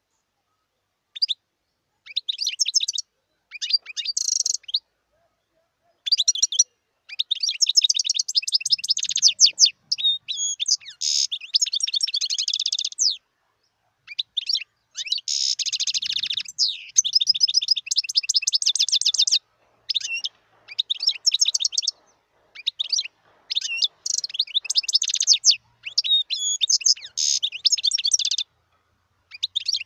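European goldfinch singing: high-pitched phrases of rapid twittering notes, each lasting one to several seconds, with short pauses between them, starting about a second in.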